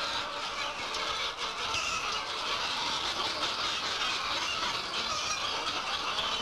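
A large flock of chickens calling and squawking all at once, a dense, steady din with no pauses.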